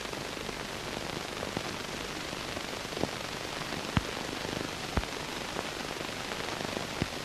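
Steady hiss and crackle of an old film soundtrack, with a few sharp pops.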